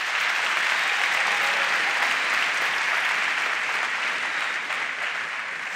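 Large audience applauding, steady clapping that begins to die away near the end.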